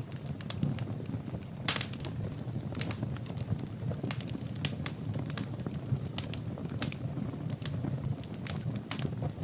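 Fire burning in a fireplace: a steady low rush of flames with frequent irregular sharp crackles and pops from the burning wood.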